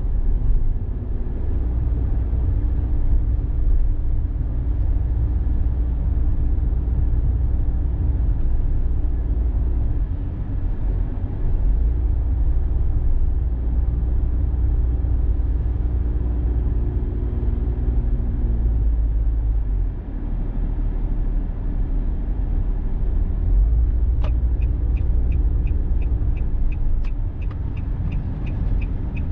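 A car driving on an expressway, heard from inside: a steady low rumble of road and engine noise. About 24 seconds in, a rapid regular ticking starts, about three ticks a second, typical of a turn-signal indicator.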